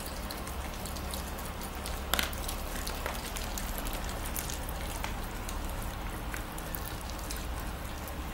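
Red fox chewing a piece of turkey: irregular wet clicks and smacks of its jaws and teeth on the meat, the sharpest about two seconds in.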